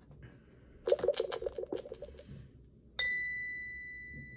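Electronic lie detector game toy analysing an answer: a rapid run of electronic pulses, about seven a second, starts about a second in and lasts roughly a second and a half. About three seconds in, a bright chime rings and slowly fades, signalling a truthful answer.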